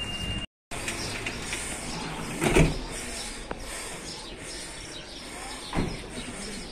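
Street ambience with two dull thumps, the louder about two and a half seconds in and a smaller one about six seconds in; the sound drops out for a moment just after the start.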